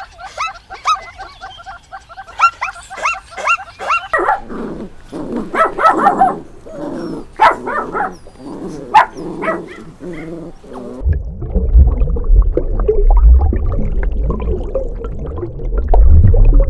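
Dogs or puppies yipping and barking: a quick run of short high-pitched yips, about three a second, for the first few seconds, then irregular barks and whimpers. From about two-thirds of the way in, a loud low rumble runs under the calls.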